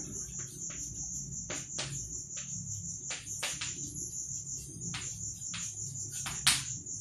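Chalk writing on a blackboard: about a dozen short taps and scrapes as the letters are formed, the sharpest about six and a half seconds in. A steady high-pitched trill runs underneath.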